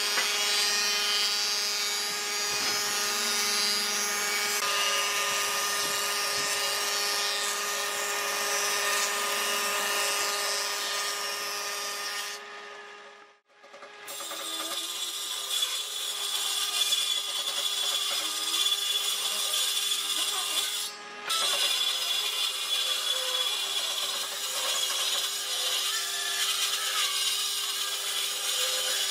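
Electric power tool running steadily on wood, a constant motor whine under the rasping noise of cutting. The sound drops out briefly about halfway through and dips again for a moment later on.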